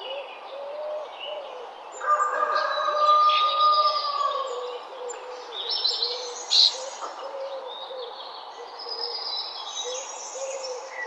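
Morning bird chorus: several songbirds singing and chirping at once, with a long whistled note about two seconds in and one loud sharp chirp past the middle. A low, repeated cooing call continues underneath.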